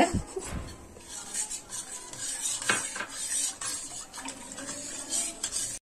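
Steel spoon stirring a thin milk-and-colostrum mixture in a metal bowl: light scrapes and clinks of the spoon against the bowl, with one sharper clink about halfway through. The sound cuts off suddenly near the end.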